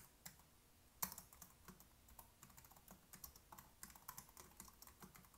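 Faint typing on a computer keyboard: an irregular run of quick keystroke clicks, one a little louder about a second in.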